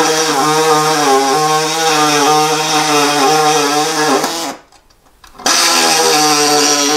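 Pneumatic body saw's reciprocating blade cutting through the thin, rusted sheet-steel floor pan of a 1966 Porsche 912, its pitch wavering as it cuts. It stops about four and a half seconds in and starts again about a second later. The blade goes through this easily, a sign that the metal is rust-thinned.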